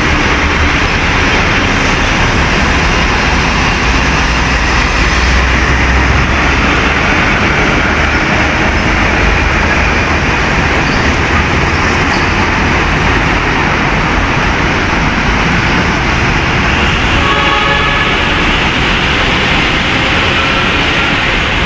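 Steady, loud traffic noise of heavy trucks and cars passing close by on a busy city road, with a deep low rumble that swells for a couple of seconds about five seconds in.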